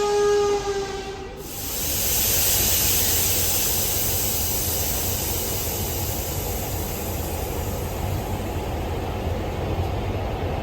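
A train horn sounding a steady note that cuts off just over a second in, followed by the steady loud rushing noise of a train running on the rails.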